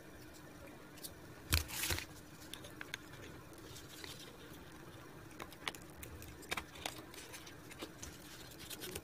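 Small taps, clicks and scrapes of hands handling cardboard pieces and a wooden craft stick on a table, with a louder double knock about a second and a half in.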